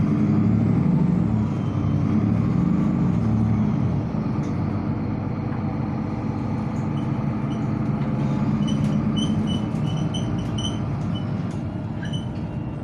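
Interior of a moving articulated city bus: steady engine and road rumble. In the second half, a run of short high beeps repeats for several seconds.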